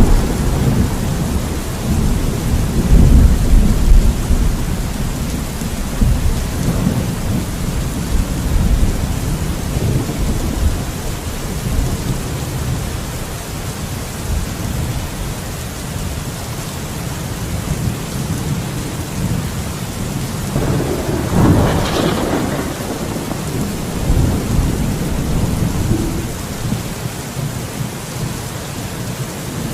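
Steady rain falling through a thunderstorm, with a deep rolling rumble of thunder that is loudest in the first few seconds and slowly fades. About 21 seconds in, a sharper crack of thunder breaks through and rumbles off.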